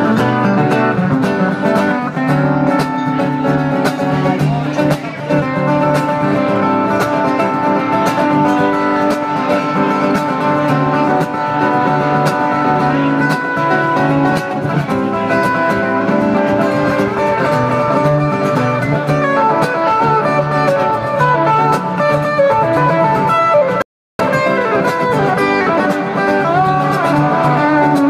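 Two acoustic guitars playing live through a PA, one taking a lead solo over the other's rhythm playing. The audio cuts out completely for a split second near the end.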